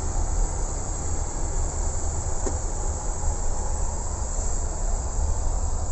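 Steady hiss of air-conditioning airflow in a Boeing 777-200 flight deck, over a low rumble.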